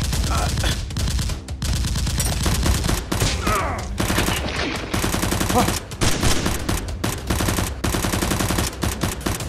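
Rapid automatic gunfire sound effects, dense runs of shots broken by a few brief pauses, laid over a Nerf blaster firefight.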